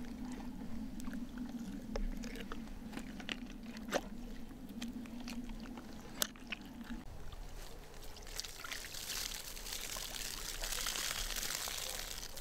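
Water being poured and splashing, building to a steady rush in the last few seconds. Before that come scattered clicks and knocks of handling over a low steady hum that stops about seven seconds in.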